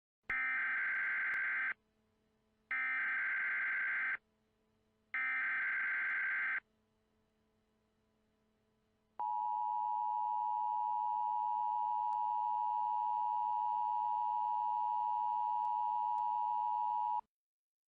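Emergency Alert System tones: three short bursts of digital data noise (the SAME header), each about a second and a half long, then the steady two-tone EAS attention signal held for about eight seconds and cut off sharply. Together they announce the start of an emergency broadcast.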